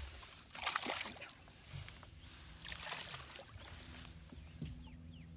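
Two short bursts of water splashing, about a second in and again around three seconds, as a hooked bass thrashes during the fight. From about four seconds on, the boat's bow-mounted electric trolling motor runs with a steady low hum.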